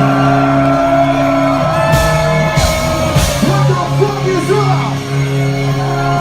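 Loud live rap-rock concert music in a large hall: steady held bass and keyboard notes under shouted vocals, with a few sharp hits about two to three seconds in.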